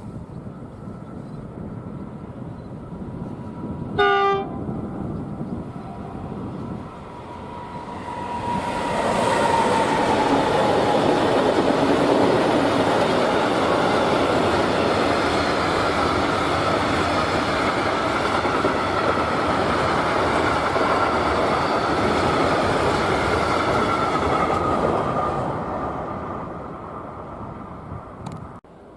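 A short single horn blast from an approaching train about four seconds in, then a freight train passing close by on the rails for nearly twenty seconds, fading away near the end.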